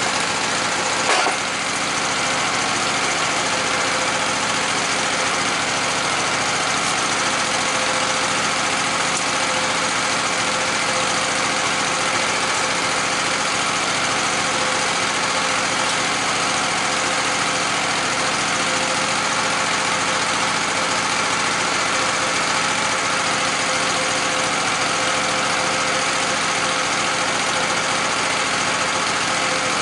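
Sawmill engine running steadily, with a single short knock about a second in.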